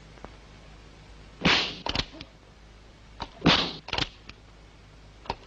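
Sound effects of a lightning-fast revolver draw: two loud, sudden bursts about two seconds apart, each followed by a few quick sharp clicks.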